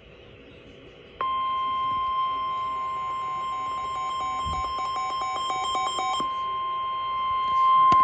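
NOAA Weather Radio warning alarm tone, one steady high-pitched tone that starts about a second in, signalling that a warning broadcast (here a flash flood warning) follows. For a few seconds in the middle, a second, quicker beeping of about four pulses a second is laid over it.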